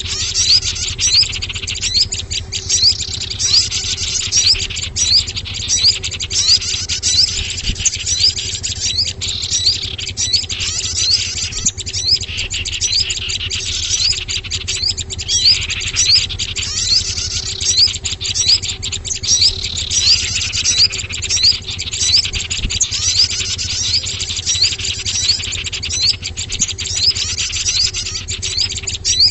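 Bird-lure recording of many small songbirds chirping and calling at once: a dense, rapid, high-pitched twittering, meant to draw small birds in, over a steady low hum.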